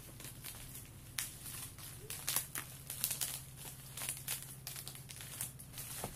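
Plastic packaging crinkling and rustling as it is unwrapped by hand, in irregular crackles.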